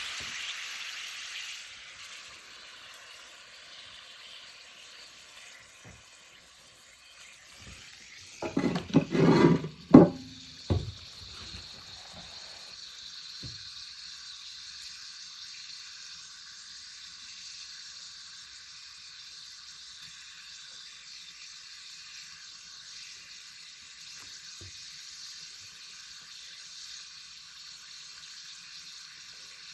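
Meat sizzling over a fire in a dome-shaped clay chimenea, a steady fatty hiss with insects chirping behind it. A short burst of loud knocks and clatter comes about eight seconds in.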